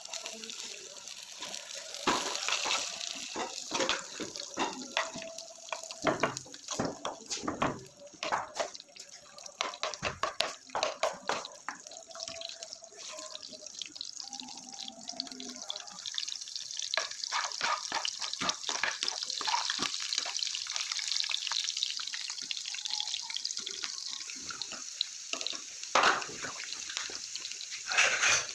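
Kitchen tap running into a sink with irregular splashing and clattering, settling into a steadier flow of water in the second half, with a couple of louder knocks near the end.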